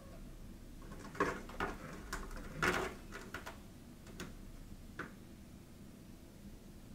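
A handful of short, irregular knocks and clatters, like things being handled in a room, the loudest nearly three seconds in.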